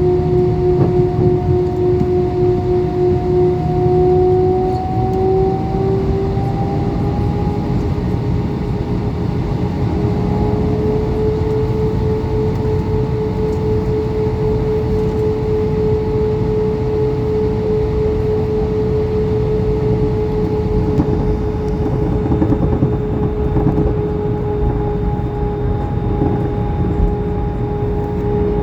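Airbus A320 jet engines heard from inside the cabin: a steady whine that rises in pitch over several seconds, then holds level over a heavy rumble. This is the engines spooling up for the takeoff run.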